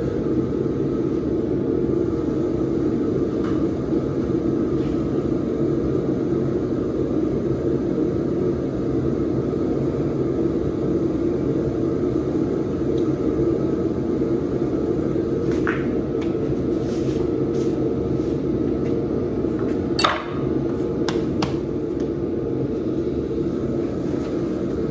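Electric motor of a workshop machine running steadily, with a few sharp clicks or taps in the second half, the loudest about twenty seconds in.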